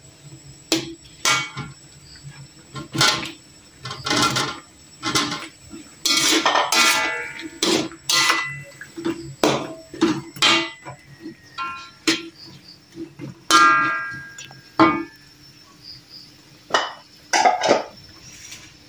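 Slotted metal spatula scraping and knocking against an aluminium wok while stirring food in thick sauce: irregular clanks, several ringing briefly, mixed with a few longer scrapes.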